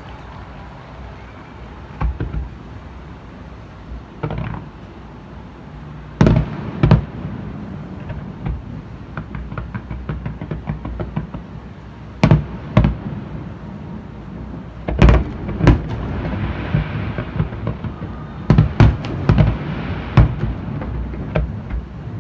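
Aerial firework shells bursting, a series of sharp booms at irregular intervals, often in quick pairs, with a denser run of bangs in the last third, over a steady low background rumble.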